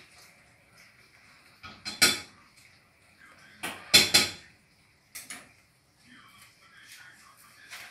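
A cat eating from a plastic food bowl on a tile floor, the bowl knocking and scraping against the tiles a few times, loudest about two and four seconds in, with faint eating noises between.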